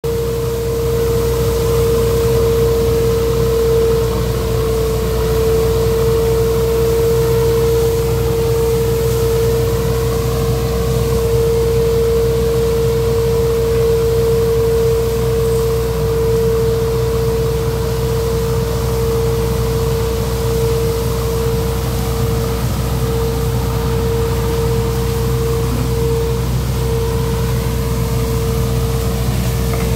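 Orchard nut sweeper running steadily: a low engine drone with a strong, unwavering whine on top.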